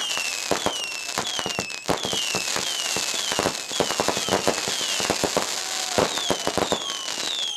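Fireworks going off in quick succession: many sharp firecracker cracks and pops over a constant crackle, with repeated whistles that fall in pitch.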